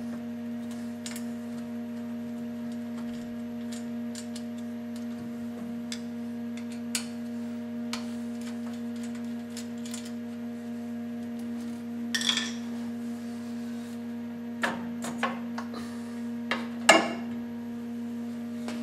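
Metal clicks and clanks from a Multifix quick-change tool holder being handled, seated and clamped on a lathe's tool post: scattered light ticks, then a few louder clanks in the last third, the loudest near the end. A steady hum runs underneath.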